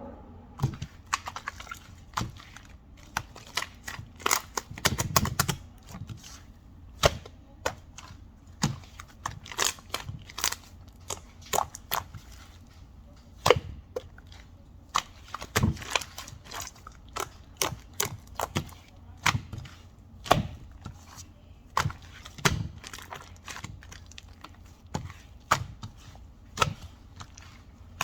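Irregular sharp clicks and taps, about one or two a second, some with a duller knock beneath them.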